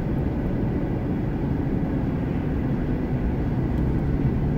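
Steady low rumble of a car's engine and tyres, heard from inside the cabin while driving slowly.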